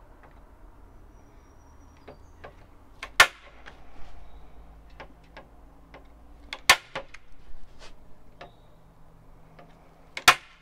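Hand staple gun firing three times, about three and a half seconds apart, driving staples through wet watercolor paper into the board, with light clicks of handling between the shots.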